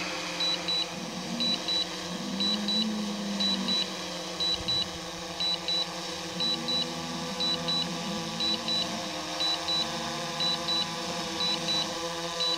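DJI Phantom 3 remote controller beeping in quick pairs, about one double beep a second: the alert it sounds while the drone is under Return to Home and landing. Beneath it runs a steady low hum.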